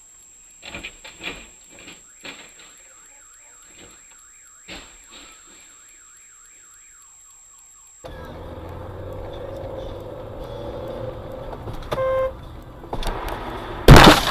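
A few sharp knocks of vehicles bumping, then a car alarm sounding with a rapid up-and-down warble. Then the steady running and road noise of a moving car, a short beep, and a loud crash of a collision near the end.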